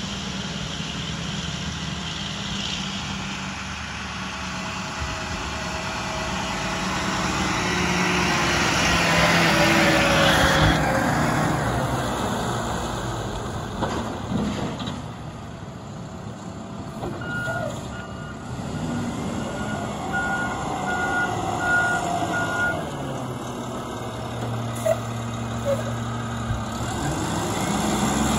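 Mack MRU front-load garbage truck's diesel engine running, swelling loudest about a third of the way in as the truck drives by. A little past the middle, its reversing alarm beeps about seven times, a little under a second apart, and a few short sharp sounds follow.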